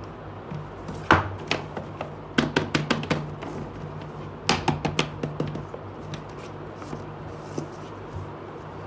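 Clear plastic tube doll packaging being handled and opened by hand: a sharp plastic click about a second in, then two clusters of quick clicks and taps, under a steady low hum.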